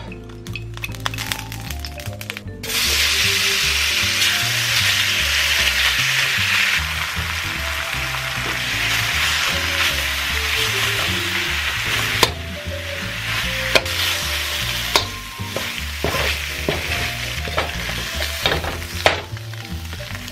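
Thin-sliced ribeye steak sizzling in hot oil in a wok as it is stir-fried, the sizzle starting suddenly about three seconds in. A wire skimmer clinks against the wok a few times, over quiet background music.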